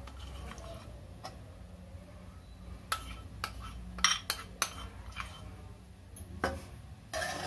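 Metal spoon clinking and scraping against a metal kadhai as ghee is spooned into roasting churma flour, a scattered run of light clinks over a faint low hum.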